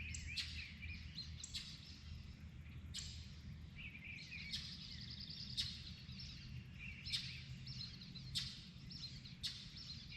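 Dawn chorus of several songbirds: overlapping trills and warbled phrases, with a sharp call note repeating about every second or so, over a faint steady low rumble.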